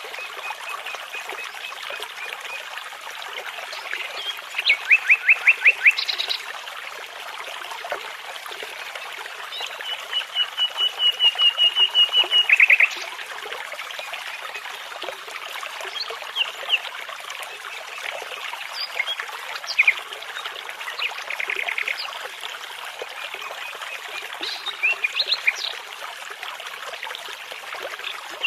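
Nightingale song in separate phrases of fast repeated whistled notes over the steady rush of a babbling brook. The longest phrase, about ten seconds in, swells louder for nearly three seconds and ends in a lower flourish.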